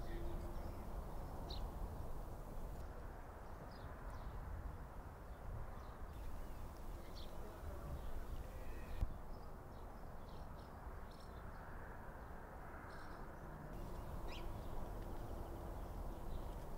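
Outdoor ambience: a steady low rumble of wind with a few short, high bird chirps scattered through it, and a single sharp knock about nine seconds in.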